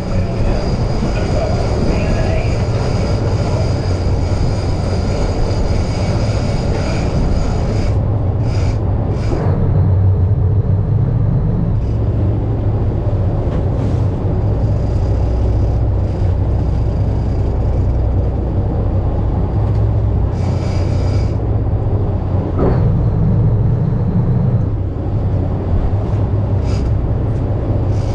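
Boat engine running steadily underway: a constant low rumble mixed with rushing water and wind noise, with a few brief hissy surges.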